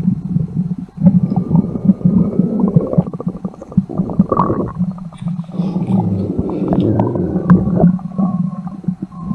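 Stomach-growling sound effect: a long, continuous gurgling rumble with squelching and crackling textures and a few short whining tones.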